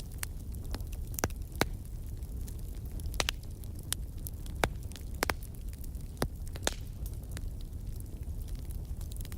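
Wood fire crackling in a fireplace: irregular sharp pops over a low, steady rumble.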